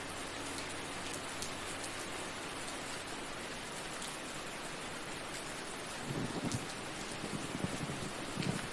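Steady rain falling on a surface, an even hiss with scattered drop patter. A few low rumbles swell up in the last few seconds.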